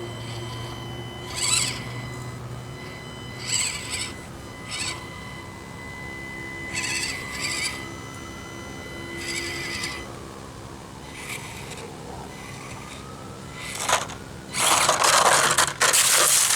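Micro RC crawler's small electric motor whining, its pitch rising and falling with the throttle as the Axial SCX24 climbs. Short high chirps come and go over it, and a loud crunching rustle starts near the end.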